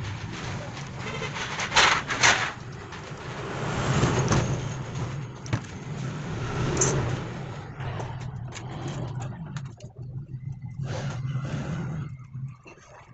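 A rag wiping and rustling over the metal armature and pinion drive of a starter motor as they are cleaned and handled, with irregular rubbing and scraping. Under it runs a steady low mechanical hum that stops near the end.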